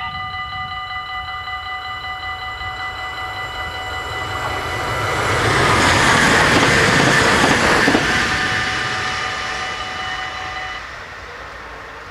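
Dutch level-crossing bells ringing steadily while an NS passenger train passes: the train's noise swells to its loudest about six to eight seconds in, drops off sharply, then fades. The bells stop near the end as the barriers begin to rise.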